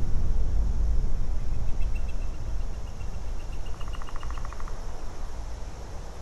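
Outdoor ambience: a loud, uneven low rumble with faint bird calls over it. The calls are a string of high chirps that quicken over about three seconds, with a short rapid trill near the middle.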